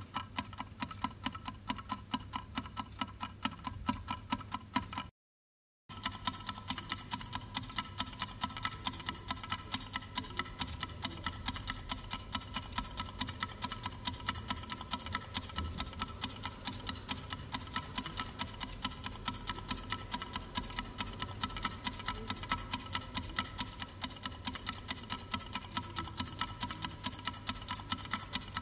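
Clock ticking with rapid, even ticks, several a second. About five seconds in, it stops for under a second of silence. Then a second clock's ticking starts, with a brighter, sharper tick.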